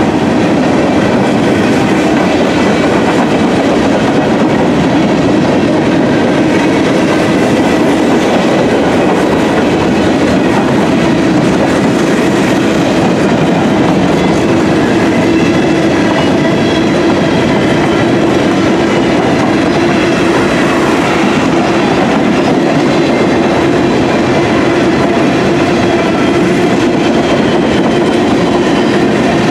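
Freight train of gondola cars rolling past close by: a steady, loud rumble of steel wheels on rail with clickety-clack over the rail joints. A faint steady ringing tone rides over it.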